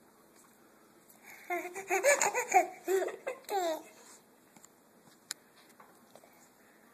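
A toddler laughing: a string of about six high-pitched giggles starting about a second and a half in and lasting around two seconds.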